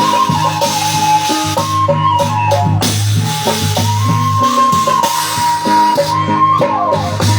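Instrumental folk music played by a band: a high held melody line that slides between notes over a low steady drone, with rattling percussion keeping the beat.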